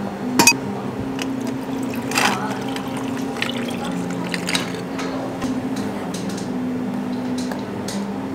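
Water poured from a plastic pitcher over ice cubes in a glass tumbler, filling the glass, with a few sharp clinks of ice. Near the end espresso is poured in from a small steel pitcher.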